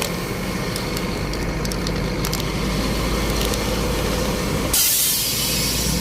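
Heavy truck's diesel engine running low and steady, then a sudden loud air hiss near the end as the air brakes are set on parking.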